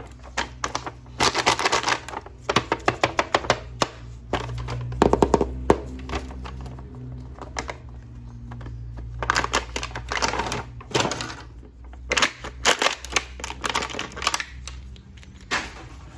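Plastic packaging of a toy action figure being handled and opened: bursts of crinkling and rapid clicking and tapping that come and go, over a steady low hum.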